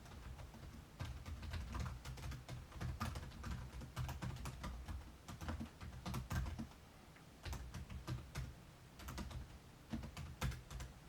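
Quick runs of irregular sharp clicks and taps, like typing on a computer keyboard, each with a low thump under it, stopping and starting in short bursts.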